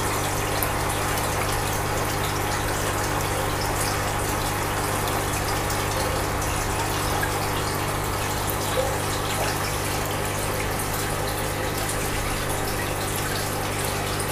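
Aquarium pump running: a steady rush of moving water over a constant low hum.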